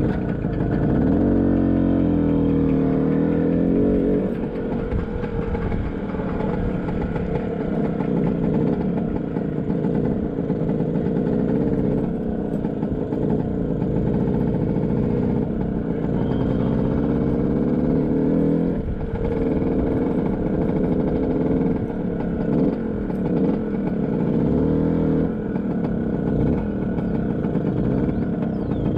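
Classic two-stroke scooter engine running at low speed, its pitch rising and falling several times as the throttle is opened and closed.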